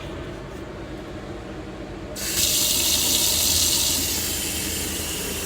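Cold water bursts from a van's kitchen faucet into the sink about two seconds in, then runs steadily. The water is fed from the van's freshwater tank.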